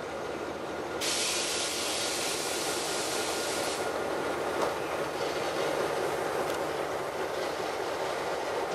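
EMD G12 diesel locomotives with 12-567 engines running steadily as a coal train rolls slowly through the yard. About a second in, a hiss of air starts and lasts nearly three seconds.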